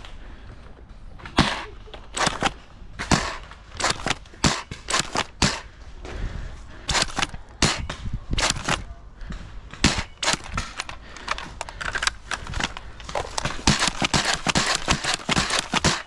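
Nerf foam-dart blasters firing in irregular single shots, a sharp pop every second or so, then coming thick and fast near the end.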